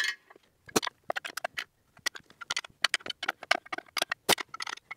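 Ratchet wrench clicking in short quick runs as the screws of a differential case spreader are backed off to release the tension on the case.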